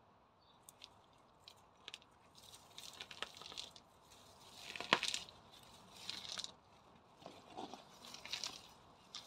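Weeds being pulled by a gloved hand from among gravel pebbles: crunching and rustling in irregular bursts, with sharp clicks, loudest about halfway through.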